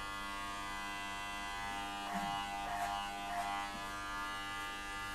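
Corded electric hair clippers buzzing steadily as they cut hair, with three short louder bursts a little past two seconds in.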